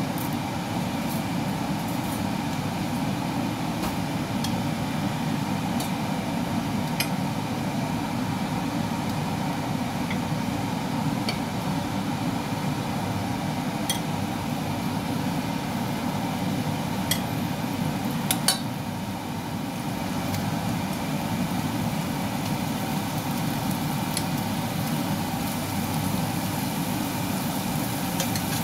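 Steady low mechanical hum under a few light clinks of metal tongs against a nonstick frying pan as raw beef slices are laid in, the loudest clink about two-thirds of the way through.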